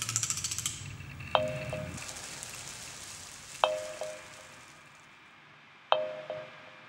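Electronic soundtrack: a rapid crackle dies away in the first second, then a chime-like ping sounds about every two seconds, three times, over a soft hiss that swells and fades.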